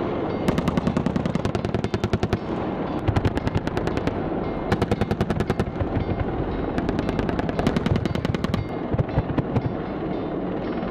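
AH-64 Apache's 30 mm M230 chain gun firing repeated short bursts, about ten rounds a second, over a steady low rumble.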